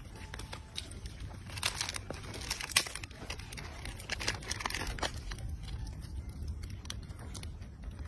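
Plastic snack wrapper crinkling and tearing in quick crackly bursts as a macaque handles it, busiest between about two and five seconds in.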